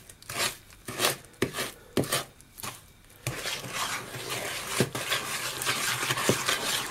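Wooden spoon beating egg into creamed butter and sugar in a mixing bowl: wet slapping strokes knocking against the bowl about twice a second, then quickening into continuous scraping and stirring from about three seconds in.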